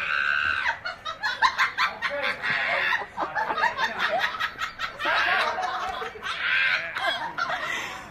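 Laughter in quick, repeated bursts.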